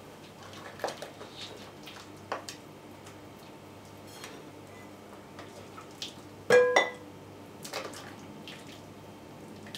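Dishware being handled: a few light knocks and taps, then two sharp ringing clinks about six and a half seconds in, followed by more clatter.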